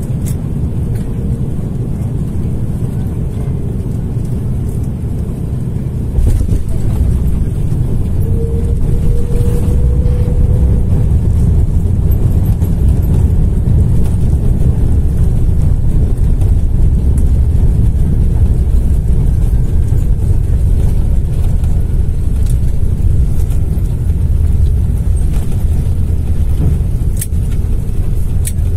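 Cabin noise of an Airbus A330 airliner: a loud, steady low rumble of engines and airflow that steps up louder about six seconds in.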